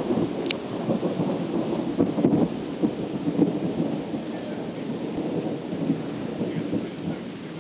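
Thunder rolling through a storm, with rain falling; the rumble is loudest over the first few seconds and then eases off.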